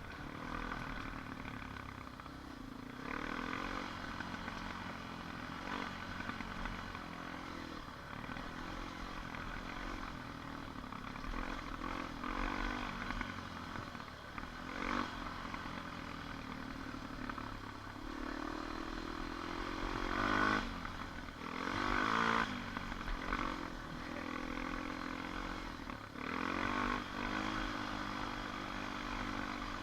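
ATV engine running under way, its pitch rising and falling with the throttle, with louder revs about two-thirds of the way through and again near the end.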